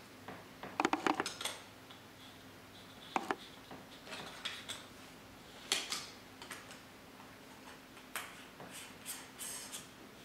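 Hard plastic lens adapter rings clicking and clacking as they are handled and one is fitted onto a camera lens: scattered light knocks, with a quick cluster of clicks about a second in.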